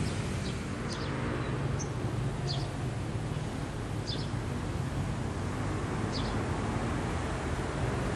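Steady low engine drone of distant vehicles or machinery, with short high bird chirps every second or so.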